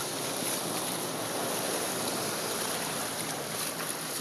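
Steady rushing wash of knee-to-ankle-deep floodwater on a street as people wade through it.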